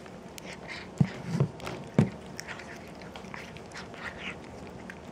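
A domestic cat chewing crunchy dry treats: a run of small, irregular crunches and clicks, with three louder low thumps between about one and two seconds in.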